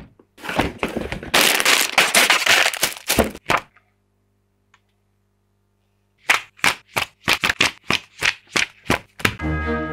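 Plastic parts bags and a cardboard box rustling and crinkling as they are handled, then after a pause a quick run of sharp clicks, about three a second. Music starts near the end.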